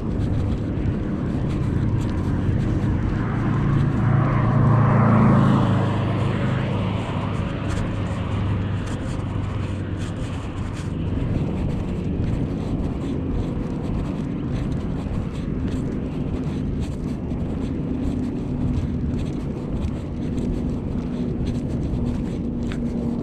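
Road traffic: a vehicle passes, swelling to its loudest about five seconds in, over a steady low rumble.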